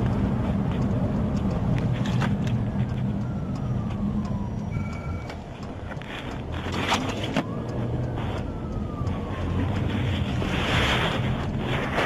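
Police patrol car driving at speed, heard from inside the car: a steady engine hum and road rumble, with scattered clicks. A siren's falling tone comes through faintly a few times.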